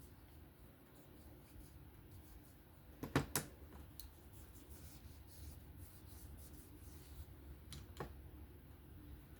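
Small parts of a disassembled folding knife being handled on a work surface: a few light clicks and taps. The loudest is a quick cluster about three seconds in, with single fainter clicks near four and eight seconds.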